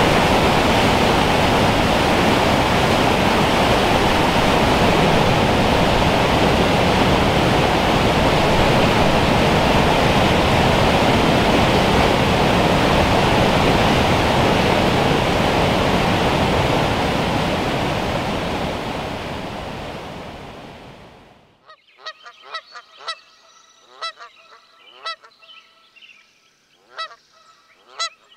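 Whitewater rapids rushing over rock, a loud steady noise of falling water that fades out about three-quarters of the way through. Then geese honk a dozen or so times in short calls near the end.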